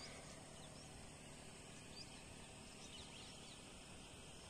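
Near silence: faint open-air ambience with a few short, faint bird chirps scattered through it.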